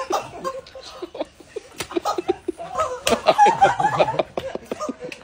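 A group of women laughing and shrieking in quick bursts, loudest about three to four and a half seconds in.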